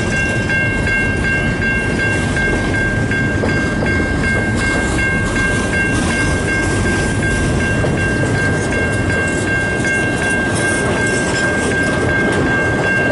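A freight train rolling past at a grade crossing, its wheels and cars rumbling and rattling steadily over the rails. Over the train runs a steady ringing of the grade-crossing warning bell, at about two strokes a second.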